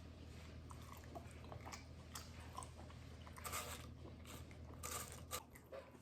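A person chewing a mouthful of buffalo chicken quesadilla, with scattered short crunchy and wet mouth sounds; the loudest bites come a little past halfway and about five seconds in.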